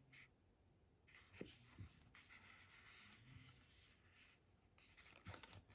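Faint rubbing and rustling of a watch on a fabric-covered display cushion being turned in the hands, with a few soft knocks, a couple about a second and a half in and another near the end.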